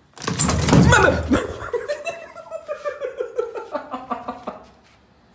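A person laughing hard: a loud outburst, then a run of quick rhythmic laughs that slowly fall in pitch and fade out.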